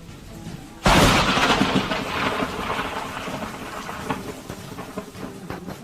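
Close thunderclap: a sudden loud crack about a second in, followed by rumbling that slowly dies away with scattered crackles.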